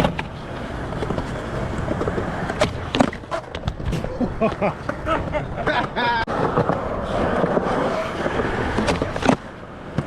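Skateboard wheels rolling on concrete, with several sharp clacks of the board about three to four seconds in and another hard clack near the end.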